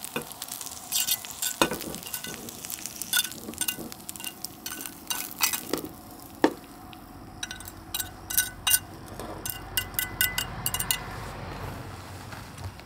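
Food sizzling in a pan while a utensil stirs it, knocking and scraping against the pan in repeated sharp clicks, with a quick run of clicks in the second half.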